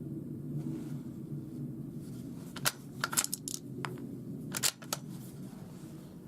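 A few short, sharp metallic clicks and clacks, a single one, then a quick cluster, then a pair, typical of a bolt-action .22 rifle's bolt being worked. Under them is a steady low background murmur.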